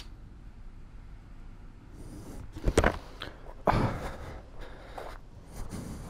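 Handling noise close to the microphone: rustling and crunching with a few sharp knocks, the two loudest about three and four seconds in.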